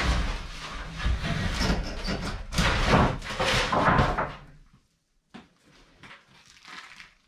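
A large plywood sheet scraping and knocking as it is taken down and slid against a wooden wall, loud for about four seconds, then near quiet with a few light knocks.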